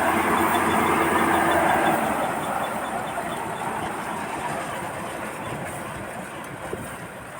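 Combine harvester running in a muddy rice paddy with a steady mechanical drone, loud for the first two seconds and then fading gradually as it draws away.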